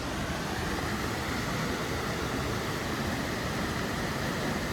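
Steady roar of Mamquam Falls, a large waterfall: an even wash of rushing water with no breaks.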